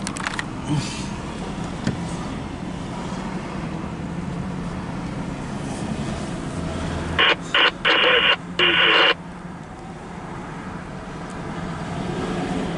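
A radio inside a car sounds four short, loud electronic tone bursts about seven seconds in, over the steady hum of the car.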